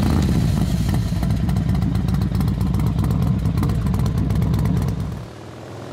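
Motorcycle engine running under way, heard from a camera mounted on the bike as it rides along. The sound drops away a little past five seconds in.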